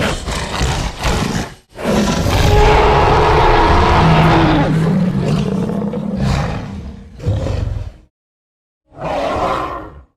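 Dinosaur roar sound effects: a short call, then one long, rough, pitched roar lasting about five seconds, then two shorter calls, each separated by silence.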